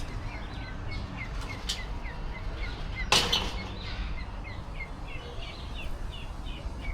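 A bird chirping over and over, short high notes about three a second, over a steady low background hum of outdoor noise. About three seconds in, a sudden loud harsh sound cuts across it for a fraction of a second.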